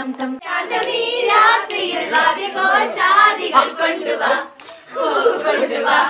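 A group of girls and young women singing together, their voices wavering, breaking off briefly about four and a half seconds in.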